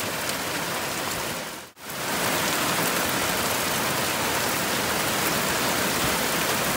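Heavy, torrential rain pouring down in a steady, dense hiss. The sound fades out briefly under two seconds in, then comes straight back just as steady.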